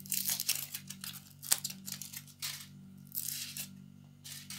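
Foil wrapper of a chocolate egg crinkling in short rustling bursts as it is handled, with one sharp click about a second and a half in.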